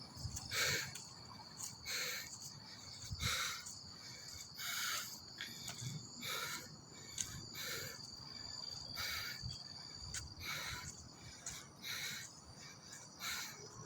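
Insects chirring in a steady high-pitched drone, with soft short swishes repeating about every second and a half.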